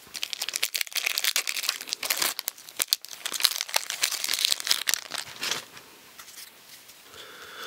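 The wrapper of a hockey trading-card pack crinkling as it is torn open, a dense crackle that dies away about five and a half seconds in.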